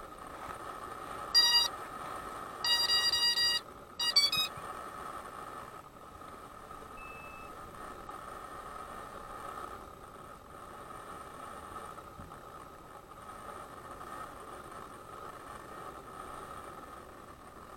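Electronic beeps from a multirotor drone's electronics: a short beep, a longer beep about a second later, then a quick rising run of tones, over a faint steady hum.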